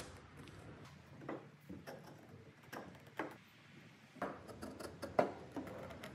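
Light, sharp knocks and clicks of wooden parts being handled and seated in a mortise-and-tenon joint, about six scattered over several seconds, the loudest about five seconds in.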